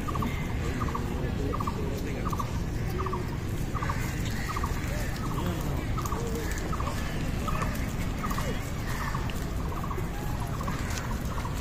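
An animal's short stuttering call, each a quick run of three or four notes, repeating evenly about three times every two seconds, over a steady low rumble.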